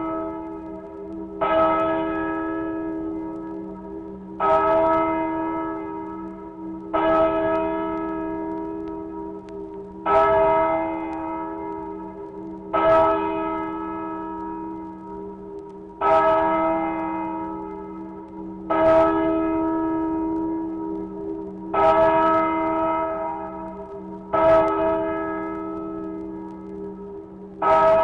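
A church bell tolling slowly, played from a 1960s sound-effects record. It is struck about every three seconds, and each stroke rings on and fades away before the next.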